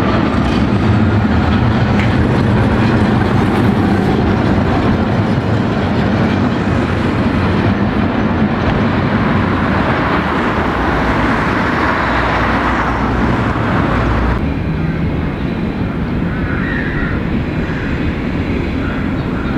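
A tram runs along street track, its wheels and running gear on the rails mixed with passing car traffic, and its motor whine fades in the first second. About two-thirds of the way through the sound drops abruptly to a quieter street background.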